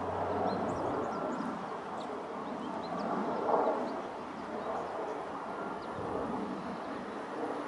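Amtrak AEM-7 electric locomotive and passenger cars approaching on the curve, a steady rumble of wheels on rail that grows a little about three and a half seconds in. Birds chirp over it.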